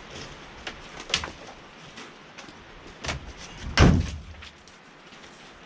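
A few knocks and bangs of something heavy being handled, the loudest a deep bang about four seconds in.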